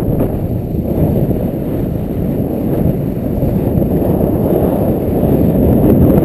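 Wind rushing over the microphone of a skier's action camera while skiing downhill at speed: a steady low roar that grows a little louder toward the end.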